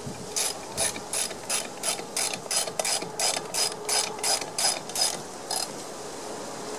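Socket ratchet wrench clicking as it turns the mower blade's centre bolt, in a steady rhythm of about three strokes a second, stopping about a second before the end.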